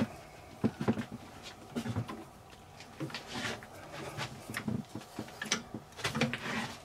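Scattered clicks, knocks and rubbing of metal tools on a wood lathe's chuck as it is tightened on a wooden cap blank with a chuck key.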